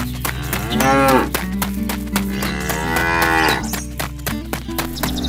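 A cow mooing twice, two long calls that rise and fall in pitch, over background music with a steady beat.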